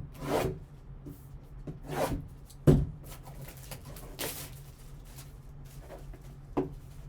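Hands handling and opening a sealed trading-card box: a few rustles of packaging, with a sharp knock about three seconds in.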